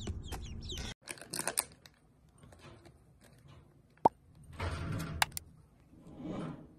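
Plastic bag crinkling, with small clicks and rattles of seeds in a glass jar as a chipmunk digs into it.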